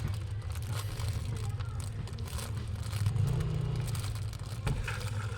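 Toyota Vios engine running at idle, a steady low hum with a brief swell about three seconds in. The car idles roughly and lacks power, which the mechanic puts down to a badly clogged fuel filter starving the fuel pump.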